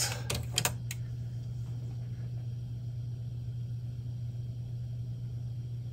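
A quick cluster of clicks about half a second in, then a steady low hum.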